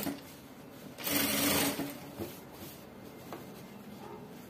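Industrial sewing machine stitching elastic onto skirt fabric in one short run of under a second, about a second in. Before and after the run there are only a few faint clicks.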